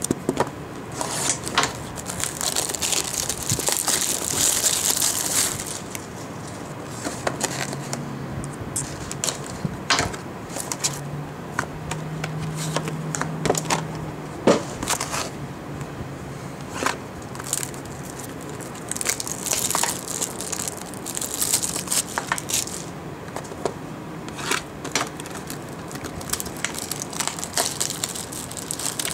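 Plastic wrapping crinkling and tearing as a sealed box of trading cards is opened, with sharp clicks and knocks from the cardboard being handled. The crinkling is heaviest near the start and again about two-thirds of the way in.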